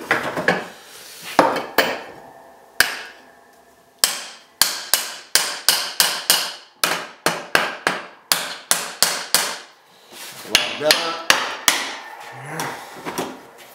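Hammer strikes on wood, seating a wooden blank on the lathe's centre: a few scattered knocks, then starting about four seconds in a quick even run of sharp taps, about two to three a second for some six seconds, then a few more knocks.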